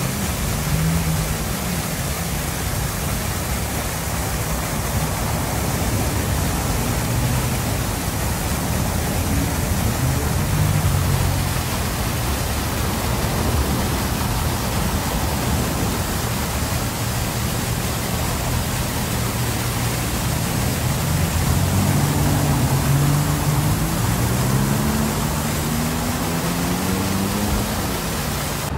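Water fountain jets spraying up and splashing back into a shallow pool, a steady even rush. Under it a road vehicle's engine rises in pitch in the last several seconds as it pulls away.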